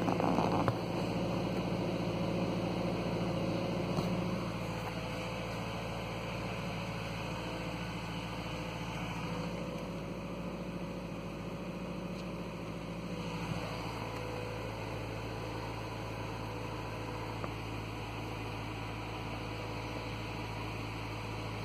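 2013 Subaru Outback's engine idling, heard from inside the cabin as a steady low hum; it drops a little in level about four seconds in.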